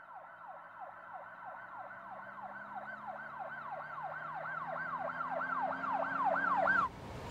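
Electronic siren sweeping quickly up and down in pitch, about three sweeps a second. It starts faint, grows steadily louder and cuts off suddenly near the end.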